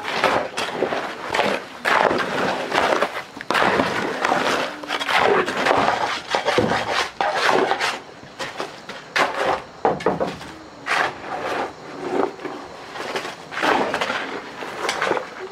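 Building work with hand tools: frequent irregular knocks and scraping, going on without a break.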